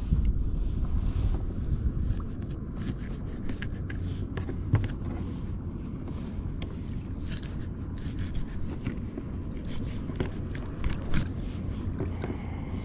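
Wind buffeting the microphone, with repeated short scrapes and clicks of a knife cutting through a bonito on a plastic kayak deck as it is cleaned.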